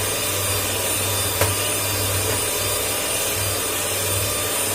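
Impex electric hand mixer running steadily, its beaters whisking eggs in a bowl, with one short click about a second and a half in.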